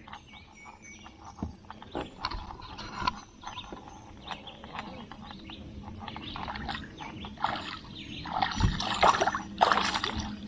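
A small fishing reel being cranked to bring a bluegill up to the boat: scattered clicks and knocks, growing louder and busier in the last few seconds.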